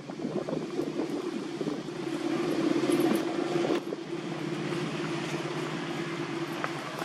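A vehicle engine running with a steady low hum, swelling about three seconds in and easing off after.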